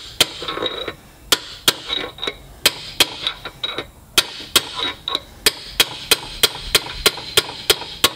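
Hammer striking a steel driver tube, with sharp ringing metal-on-metal hits about three a second and two short pauses. The blows tap the spacer and front pinion bearing down onto the pinion shaft of a Subaru R180 rear differential to seat them.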